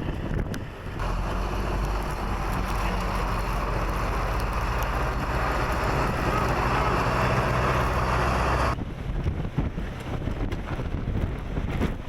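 Blizzard wind blowing hard across the microphone, a dense steady rushing with a low hum underneath. It cuts off abruptly near nine seconds in and gives way to gustier, uneven wind noise.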